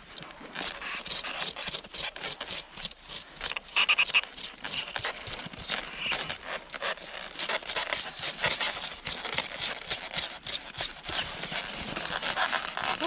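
Rapid, irregular scraping and crackling as ice is scraped and knocked off a Yakutian horse's frozen, shaggy coat by hand.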